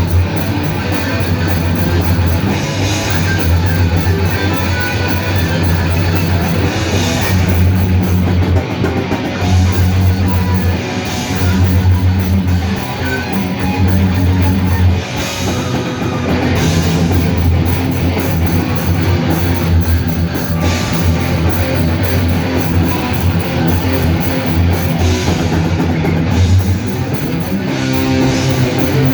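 Live rock band playing loud, heavy rock: electric guitar and drum kit, with no singing.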